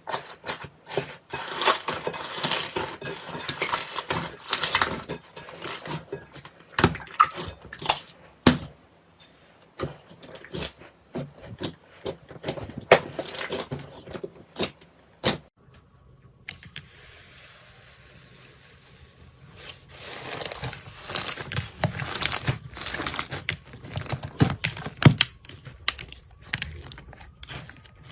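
Slime being squeezed and stretched by hand, making rapid sticky clicks, pops and crackles. There is a lull of a few seconds a little past halfway.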